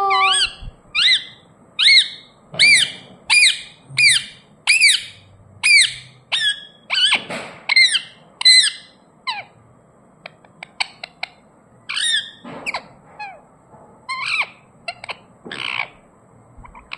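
Pet ringneck parakeet calling: a quick run of short, arched chirping calls, about two a second, then sparser calls mixed with soft clicks from about ten seconds in.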